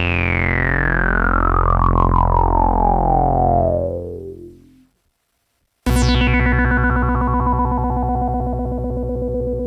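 Dave Smith Mopho analog monosynth playing a preset: a held low note whose resonant filter sweeps slowly downward. The note fades out about four to five seconds in. After a short gap, a second low note starts with a fast downward filter sweep and holds on.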